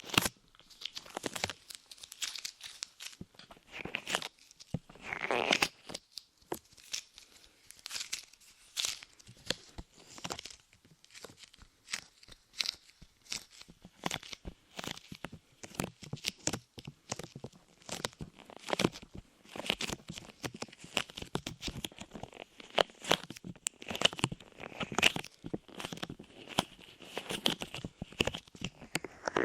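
Soft light clay pressed onto and pulled off a microphone, making dense, irregular sticky crackles and tearing snaps.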